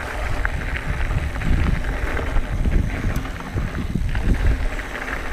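Mountain bike rolling along a gravel road: wind rumbling on the microphone, with the tyres crunching and ticking over loose gravel.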